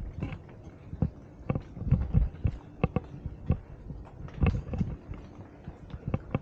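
Footsteps walking at about two steps a second, each a sharp knock, over a low rumble.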